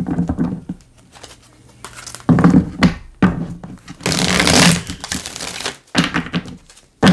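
A tarot deck being shuffled by hand: a dense fluttering rush of cards riffling together about four seconds in, among a few soft knocks and shuffles as the deck is handled and squared.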